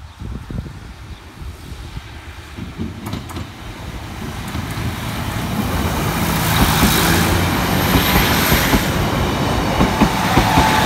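A Class 156 and Class 153 diesel multiple unit approaching and then passing close by, growing steadily louder from about a third of the way in. Its wheels click over the track as the carriages go past.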